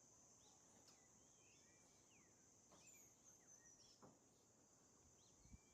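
Very faint rainforest ambience: scattered short bird chirps and whistles over a steady high hiss, with a soft low thump near the end.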